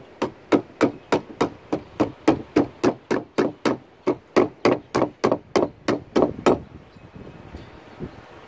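Hammer driving nails into wood with rapid, even blows, about three to four a second, stopping about six and a half seconds in. The nails are likely those of electrical-cable clamps that fix the rifle's barrel to its wooden stock.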